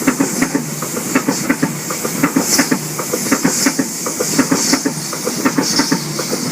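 Oscar (H set) electric multiple unit passing through the station, its wheels clacking rapidly and unevenly over the rail joints, with recurring bursts of high hiss.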